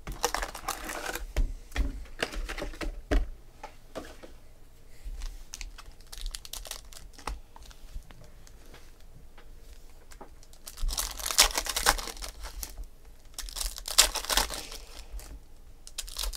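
Foil trading-card pack wrappers crinkling and crackling as the packs are grabbed, stacked and opened by hand. The sound comes in irregular short bursts, with the loudest late on.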